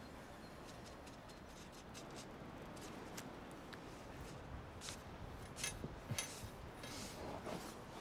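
Faint rustling of clothing with scattered small clicks and ticks from a person moving, over quiet outdoor air; the ticks come more often in the second half.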